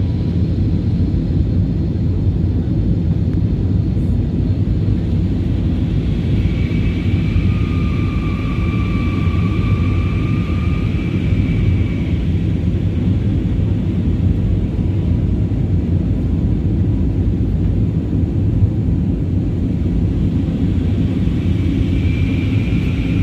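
Airbus A320's twin turbofan engines at takeoff power, a loud, steady low rumble. A high engine whine joins in about six seconds in, lasts some five seconds, and comes back near the end.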